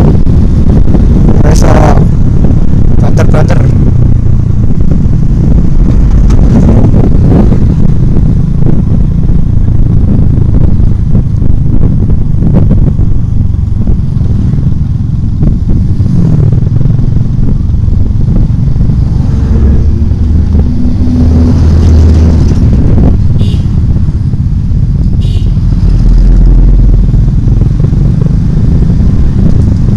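Loud wind rush on the microphone of a camera riding on a moving motorcycle, over the motorcycle's engine and road noise. About halfway through, an engine briefly rises in pitch.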